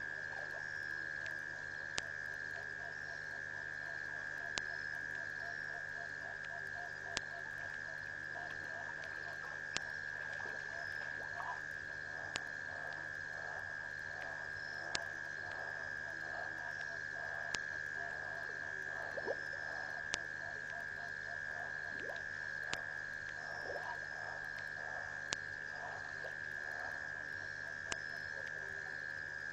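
A chorus of frogs croaking at a waterhole at night, in runs of quick repeated pulses, over a steady high-pitched drone. Sharp clicks recur about every two and a half seconds.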